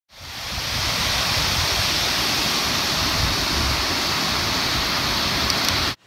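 Steady rush of a waterfall's falling water, fading in at the start and cutting off abruptly near the end.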